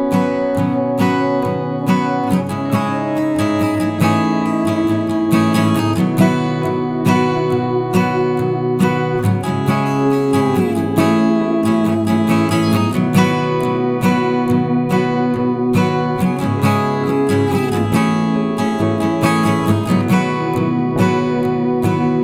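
Background music: acoustic guitar plucked and strummed, with a few sliding notes.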